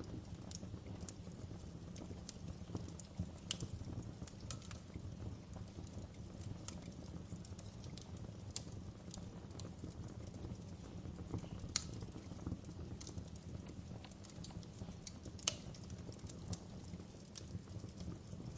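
Wood fire burning in a fireplace, crackling with irregular sharp pops over a low, steady rumble. The loudest pops come about twelve and fifteen seconds in.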